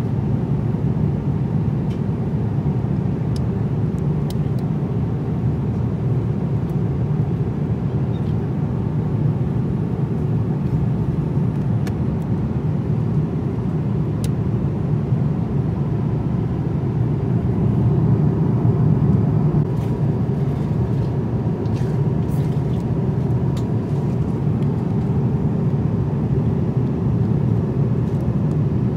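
Steady cabin noise inside a Boeing 787-9 airliner in flight: a continuous low rush of airflow and engine sound, with a few faint ticks.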